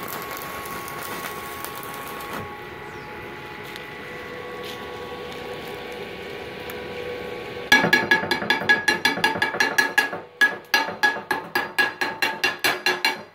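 Stick (MMA) welding arc from a Multipro MMA 200G KR inverter welder, running a steel electrode on cast iron, crackling with a slightly rough sound. It stops about two and a half seconds in, leaving a quieter steady hum. From about eight seconds in, a hammer chips slag off the weld in a quick run of ringing metal strikes, about four or five a second.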